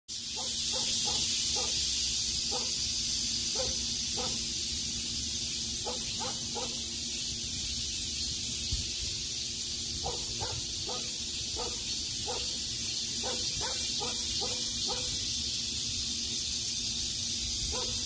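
Steady high drone of cicadas, with a dog barking in short runs of two to four barks every few seconds and a low wind rumble on the microphone.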